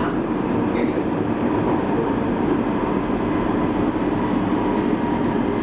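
Rotterdam metro train running: a steady rumble with a faint, steady high whine.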